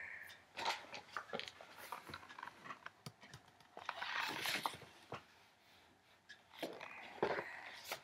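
A paper picture book being handled and its pages rustling: scattered small clicks and crackles, with a longer rustle about four to five seconds in.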